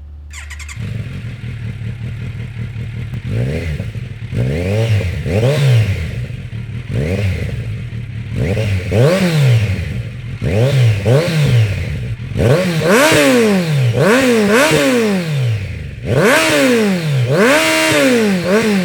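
Kawasaki Versys 1000 SE's inline four-cylinder engine through an Arrow exhaust, idling and then blipped over and over, each rev rising and falling quickly. The blips go higher and louder in the second half.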